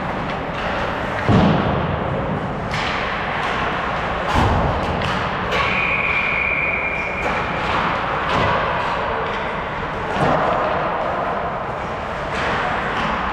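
Ice hockey rink noise: repeated thuds and sharp knocks of pucks and sticks against the boards and ice, over a steady wash of arena noise. A brief high steady tone sounds about six seconds in.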